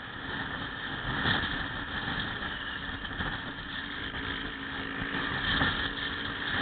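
Small motorcycle riding at road speed, heard from a camera mounted on the bike: a steady mix of engine noise and wind rush on the microphone, with a few brief louder swells as other motorcycles in the group ride alongside.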